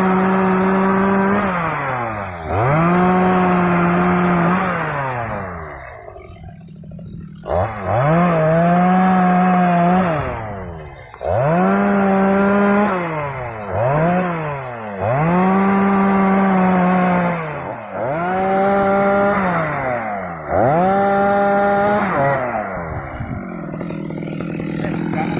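Stihl MS 250 two-stroke chainsaw run up to full throttle in about eight bursts of one to three seconds, dropping back to idle between them, as it cuts acacia wood. It settles at idle near the end.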